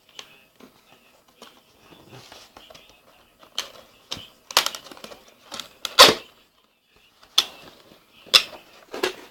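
Handling noises while unpacking a keyboard from its paper packaging: irregular knocks, clicks and rustles, the loudest about six seconds in.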